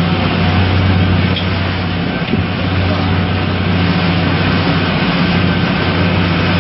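Motorboat engine running steadily with a low drone, under a loud, even rush of wind and water noise.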